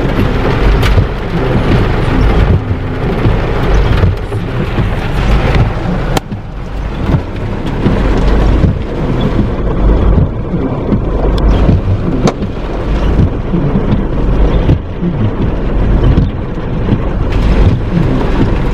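Loud, low rumbling and buffeting noise, with a few sharp clicks.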